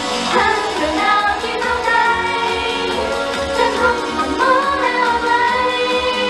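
Idol-pop song played loud over the stage speakers, with a woman singing the melody over the backing track.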